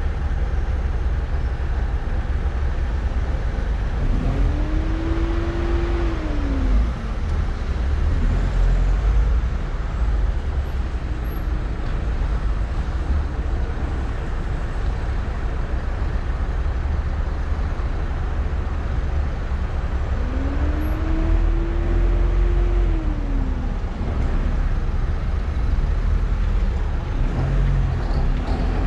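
Car driving along a city street: a steady low rumble of engine and road noise. Twice, an engine note rises, holds for a second or two and falls away again.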